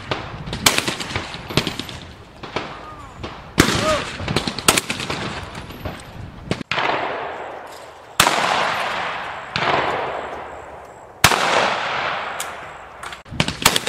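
Shotguns firing at clay targets: a run of sharp shots, one every second or two, each trailing off in a long echo.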